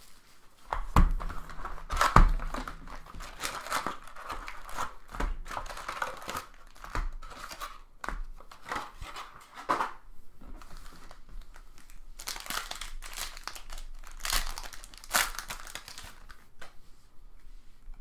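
Trading card pack wrapper being torn open and crinkled, with cards handled, in a run of crackling rustles. Two soft thumps come about one and two seconds in.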